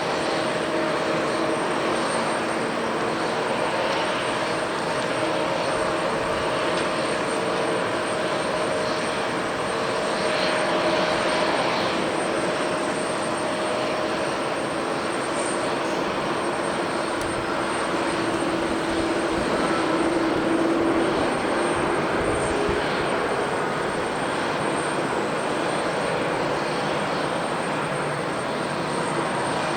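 Jet airliner engines running: a steady, loud rush with a few faint held whining tones, one of which rises slightly about two-thirds of the way through.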